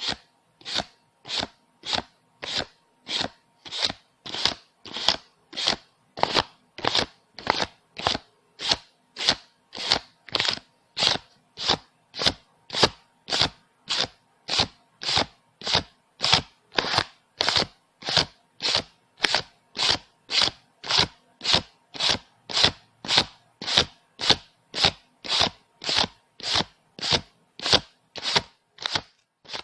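Paper banknotes counted by hand one at a time, each bill flicked with a short crisp swish. The swishes come at an even pace of about three every two seconds.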